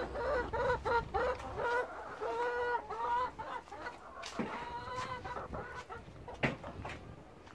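Chicken clucking: a run of short calls followed by a few longer drawn-out calls, fading out about six seconds in. Two sharp knocks come in the second half.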